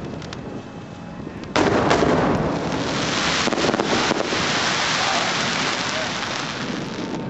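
An aerial firework shell bursts with a sudden loud bang about a second and a half in, followed by several seconds of dense crackling as the stars burn out, slowly easing off.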